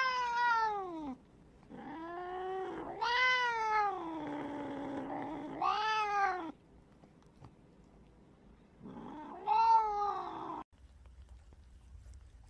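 A cat meowing about five times, each long meow rising then falling in pitch, with short gaps between. The third meow is the longest, trailing off lower. The calls stop abruptly about ten and a half seconds in.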